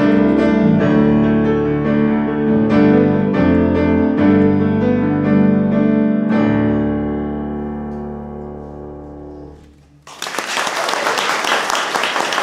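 Kawai grand piano playing the closing phrase of a slow piece; the last chord is held and fades away over a few seconds. Near the end the audience breaks into applause.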